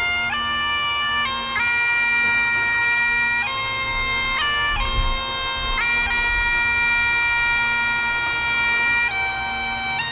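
Highland bagpipes playing a slow tune of long held notes over the steady drones.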